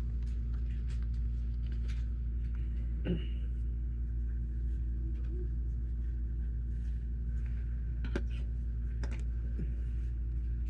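Steady low room hum with scattered light clicks of plastic Lego pieces being handled, the sharpest click about three seconds in and another about eight seconds in.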